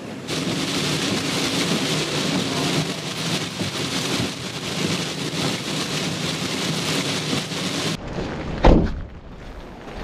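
Heavy rain in strong wind, a dense steady hiss. About eight seconds in it gives way abruptly to quieter wind noise, with a loud low thump just after.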